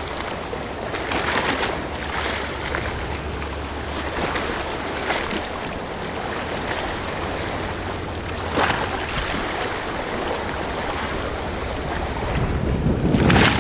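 Sea waves washing against a rocky shore, with wind rumbling on the microphone. The noise swells several times, loudest near the end.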